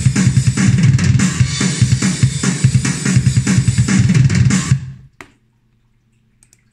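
Ugritone KVLT Drums II 'Seattle 1991' sampled drum kit playing a fast programmed groove at 145 BPM, with kick, snare and cymbals. The playback stops about five seconds in, followed by a single click and a couple of faint ticks.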